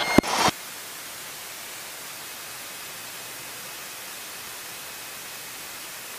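Steady static hiss of a light aircraft's intercom and radio audio feed, with no engine tone in it; a radio voice transmission cuts off about half a second in.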